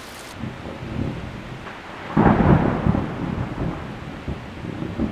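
Steady rain, with a peal of thunder starting about two seconds in and dying away over the next couple of seconds.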